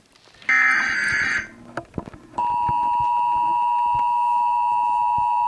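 Emergency Alert System test broadcast through a TV speaker: a burst of EAS header data tones about a second long, then, about a second later, the steady two-tone EAS attention signal starts and holds.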